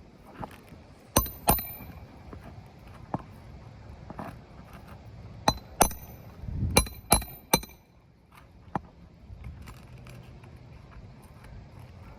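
Hammer striking roofing nails during a shingle repair: several sharp metallic taps with a short ringing, coming in small groups.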